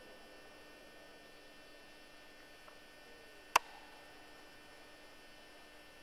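Faint steady electrical hum, with one sharp click about three and a half seconds in.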